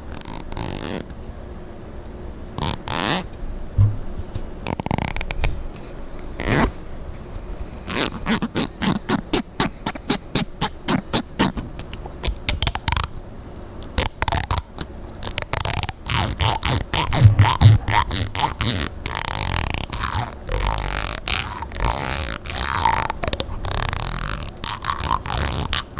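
Comb teeth strummed and scraped close to the microphone: a few single strokes at first, then a quick run of clicks from about eight seconds in, and busier, denser scraping near the end.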